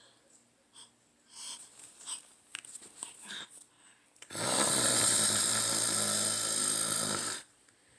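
A person snoring: one loud, buzzing snore about three seconds long that starts about four seconds in and stops abruptly, after a few faint breaths and small clicks.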